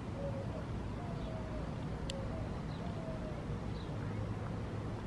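Outdoor background: a steady low rumble with faint short tones recurring about once a second, and a single sharp click about two seconds in.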